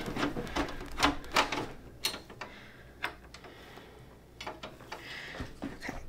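Small clicks and knocks of parts being handled inside an open desktop PC case, a few sharp taps in the first two seconds and a single one about three seconds in.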